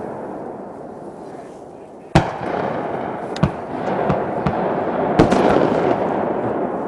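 Distant shotgun shots at a duck hunt: one sharp report a little over two seconds in, the loudest, then three more spread over the next three seconds, each trailing off into a rolling echo.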